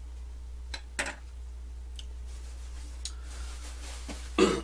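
A few light clicks and taps as things are handled on the table, the sharpest about a second in, then one short, louder noise near the end.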